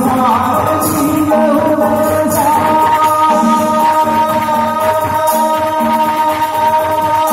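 Live band playing a Santali song with a singer. A long held note sounds over the band from about two seconds in and bends down near the end.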